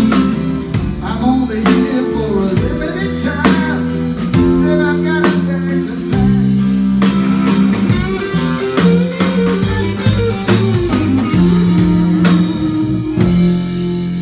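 Live rock band playing through a PA: electric guitars, keyboard and a drum kit, with cymbal and drum hits coming regularly over held chords.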